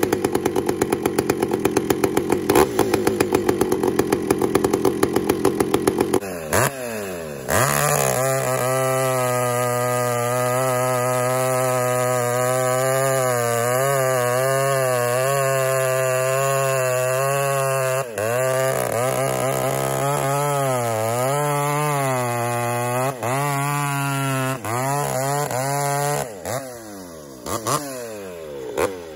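Large ported chainsaw cutting through a big hardwood log. It runs with a rapid uneven pulsing for the first six seconds or so. Then it holds a steady engine note under load while the chain cuts, the pitch sagging and recovering a few times. Near the end the saw comes out of the wood and drops back.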